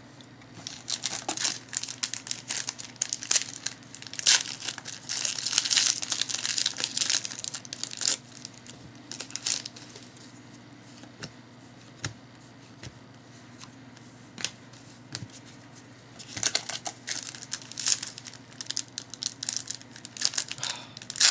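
Trading card pack wrappers being torn open and crinkled, in two bouts with a quieter stretch of a few scattered clicks between; the packs are hard to open.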